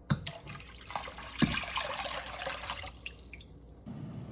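Water moving and dripping in a stainless steel stockpot, with a couple of light knocks. Just before the end a steady low rushing sound starts as the pot of water steams on the stove.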